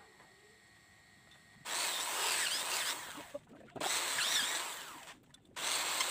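A power tool working in three bursts of about a second and a half each, starting about two seconds in and separated by brief gaps, each burst starting abruptly and tailing off, with wavering high squeals.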